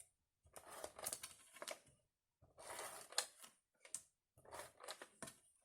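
Faint rustling of paper and card being handled, with light taps and clicks, in a few short spells.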